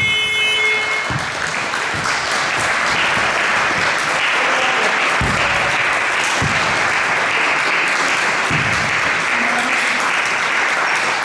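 Gym scoreboard horn sounding the end of the game, cutting off just under a second in, then the crowd applauding steadily, with a few low thumps in the applause.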